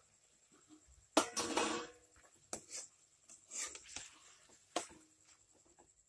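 Black plastic ladle scraping and knocking against a metal kadai while stirring a thick egg and tomato mixture: a long scrape about a second in, then a few sharp knocks and shorter scrapes.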